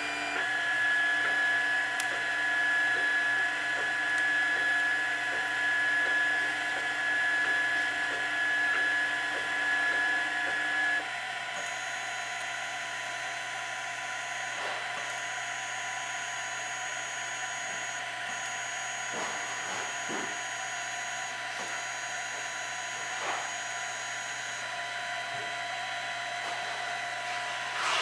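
Printrbot Play 3D printer running a print, its stepper motors whining at a steady pitch over the constant whir of the print-head cooling fan. A louder mid-pitched whine stops about eleven seconds in. A thin high whine then starts and stops several times.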